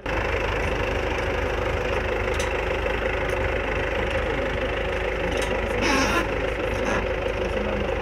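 Tractor engine running steadily as it pulls a tree-planting machine through the soil, a little louder for a moment about six seconds in.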